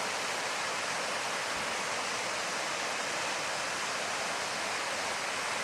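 Waterfall and creek rushing steadily, running high and fast.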